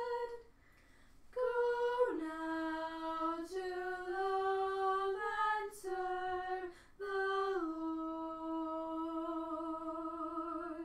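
Female voice singing a hymn unaccompanied, in short phrases with brief breaths between them, ending on a long held note.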